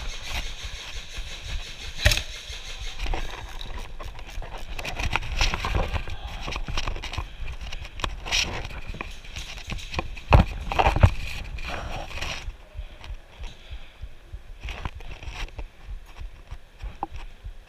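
Irregular clicks and knocks from an airsoft player's rifle and gear being handled and moved, over a rough rustle, with the loudest knocks a little past the middle.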